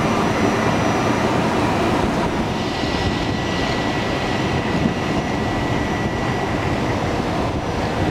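Trenitalia E.464 electric locomotive running close by: a steady loud rumbling hum of its machinery and cooling fans, with a thin high whine coming in about two seconds in.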